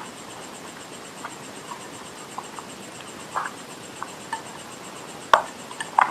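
Close-miked chewing of crunchy clay: sparse small crunches and mouth clicks, with a sharp crack about five seconds in and another near the end.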